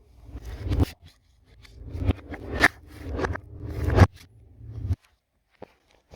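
Hard parts of a dryer being worked during disassembly: scraping and rubbing in several swelling strokes, each ending in a sharp click. The sound stops about five seconds in, leaving only a couple of small ticks.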